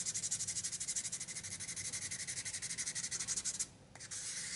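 Emery nail board rubbed quickly back and forth over the rim of a briar pipe bowl, sanding back dried stain so that it stays only in the grain. The rasping strokes come rapid and evenly spaced, break off about three and a half seconds in, then resume as a shorter steady rub near the end.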